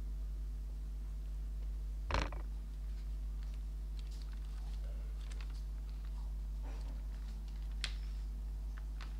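Steady low hum with a single sharp knock about two seconds in, then scattered light clicks and taps of small objects being handled on a table.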